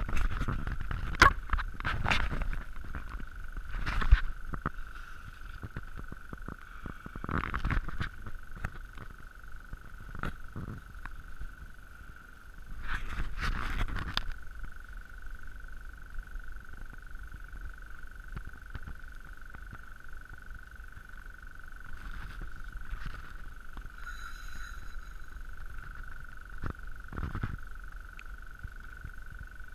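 Irregular knocks and rustles from a fishing rod and spinning reel being handled and worked during a fight with a fish, over a steady mid-pitched hiss. The loudest knocks come in the first few seconds, with a longer cluster about halfway through.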